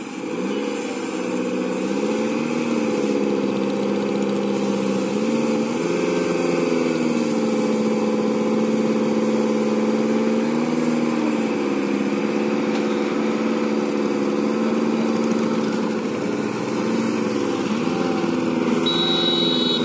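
Maruti Suzuki Zen's G10B petrol engine revving under heavy load while towing a larger SUV. Its pitch rises and falls several times, then holds steady for a while in the middle.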